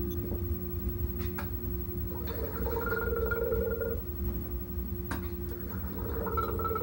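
Gurgling slurps from drinking out of a foam cup through a full-face helmet mask, twice, each lasting about a second and a half, over a steady low hum.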